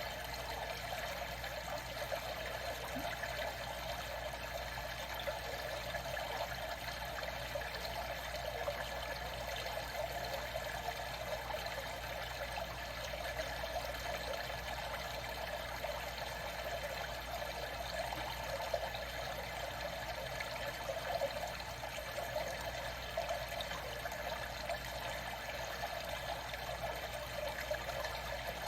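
Water trickling and flowing in a steady, unbroken wash.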